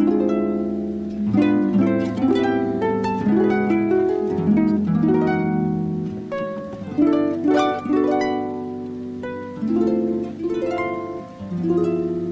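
Music: an instrumental passage on plucked strings, picked melody notes over chords with no singing.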